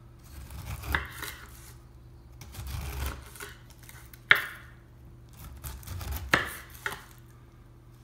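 Long kitchen knife cutting strips of rind off the sides of a whole pineapple. Each stroke is a scraping cut through the peel that ends in a sharp knock of the blade on a wooden cutting board, four times in all, the loudest about four seconds in.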